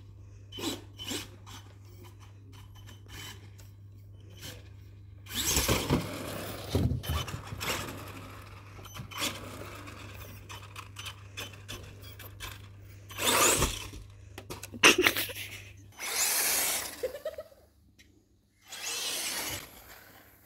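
Electric radio-controlled car with a brushless motor, driven in several short bursts of throttle with a drill-like whine, the loudest about two-thirds of the way through, with scattered clicks between.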